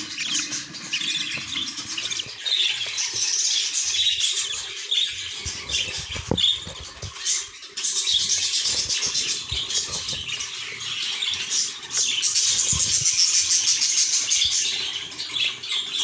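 Budgerigar chicks in a nest box cheeping and chattering, a dense high-pitched calling that goes on throughout, with a few short low thumps.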